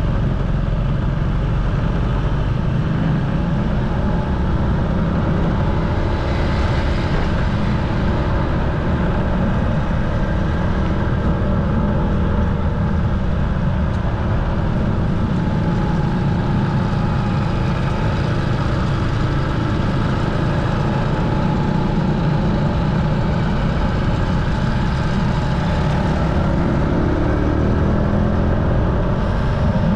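Motorcycle riding along at road speed, heard through an action camera's microphone: a steady, loud rush of wind with the engine running underneath. The engine's pitch rises and falls slightly a couple of times.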